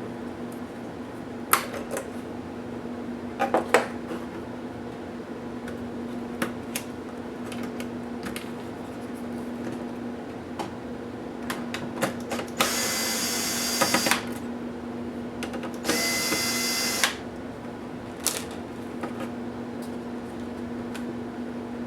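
Electric screwdriver running with a whine in two bursts of about a second and a half each, backing out laptop screws. A few sharp clicks from small parts being handled come earlier, over a steady low hum.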